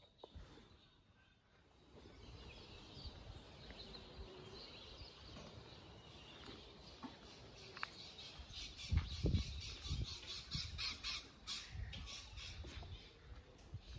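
Birds calling and chattering in the trees, with a fast, even run of repeated high notes through the second half. A few dull low thumps come about two-thirds of the way in.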